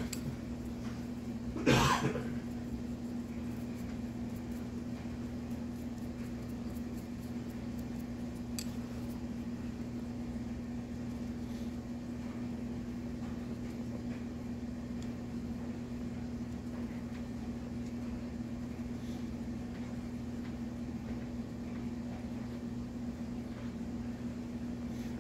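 A steady low hum, with one short, loud cough about two seconds in.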